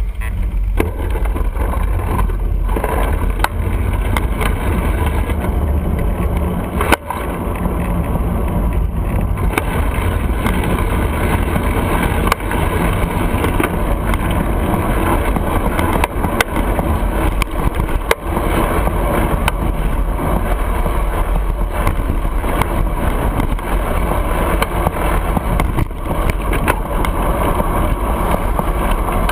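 Steady road and wind noise picked up by a handlebar-mounted camera on a bicycle riding through city traffic. A deep rumble runs throughout, with a few sharp knocks now and then.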